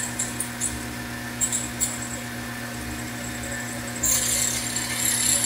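Small metal lathe running with a steady motor hum while the cutting tool trims the threads off a tiny 0-80 screw. Light scratchy ticks of the cut come in the first two seconds, and a sharper high hiss joins about four seconds in.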